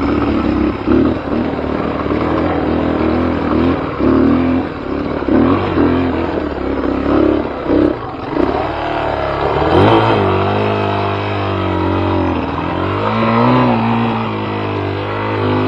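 Dirt bike engine under throttle on a rocky trail climb: short on-off revs for the first half, then held and rising and falling in pitch from about ten seconds in, as the bike works up over rock ledges.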